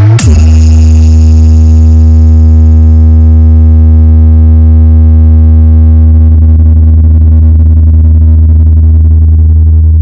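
A synthesized sub-bass test tone from a DJ competition track: a quick rising sweep into one deep, steady bass note held for about ten seconds, very loud, its upper buzz slowly fading away.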